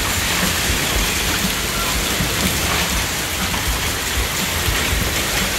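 Heavy rain mixed with hail pelting the yard and patio, a dense steady hiss scattered with small ticks of hailstones striking.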